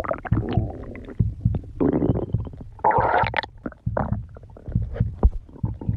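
A person's stomach growling: irregular gurgles, squelches and little pops, with a longer bubbling gurgle from about two to three and a half seconds in.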